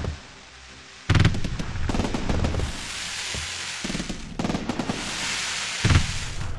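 Firework shells bursting in a simulated fireworks display. There is a loud bang about a second in and another near the end, with a long crackling hiss between them.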